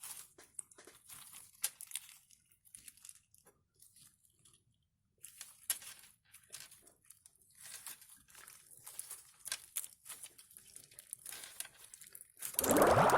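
Homemade pink slime being squeezed and stretched by hand, giving irregular soft crackles and clicks with a brief pause partway through. Music starts loudly just before the end.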